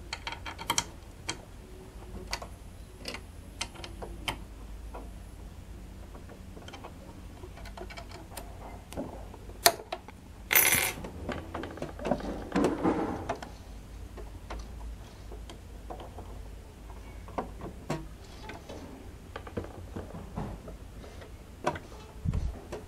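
Small metallic clicks and taps of a screwdriver and fingers working the needle-plate screw of a portable sewing machine as the plate is tightened down. There is a sharper clink about ten seconds in, followed by a short patch of handling noise.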